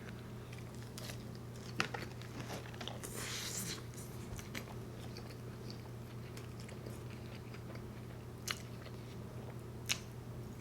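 A person chewing and biting animal-style fries (fries with melted cheese, spread and grilled onions), picked up by a close microphone. There are a few sharp mouth clicks and smacks, one about two seconds in and two near the end, over a faint steady hum.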